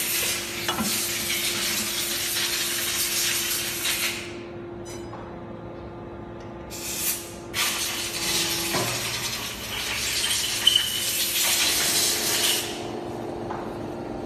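Abrasive flow machine hissing with escaping air in long spells: one of about four seconds, a short burst near the middle, then another of about five seconds. A steady low hum runs underneath and stops a little past the middle.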